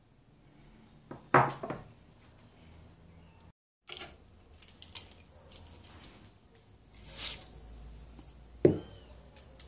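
Metal handling knocks from a small steel pulley puller and a stepper motor being set up on a bench vise: a sharp clunk about a second in, another near the end, and light clicks between. About seven seconds in comes a short hiss from an aerosol can sprayed onto the motor's pulley.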